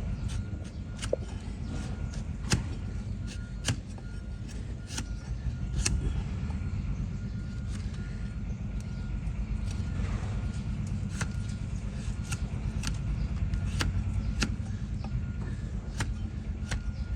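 Donkey hoof being trimmed: sharp snaps and cracks of the trimming blade cutting through hoof horn at irregular intervals, over a steady low rumble.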